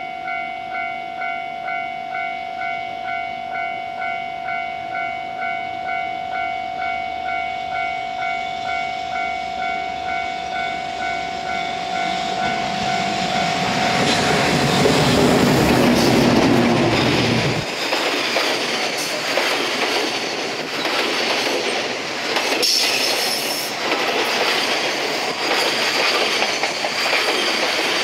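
An electronic warning bell pulses steadily, about one and a half rings a second, while a freight train approaches. It is then drowned out as a JR Freight electric locomotive rumbles past at about the halfway point, running down a steep grade. Container flat wagons follow, clattering over the rail joints with brief squeals from the wheels.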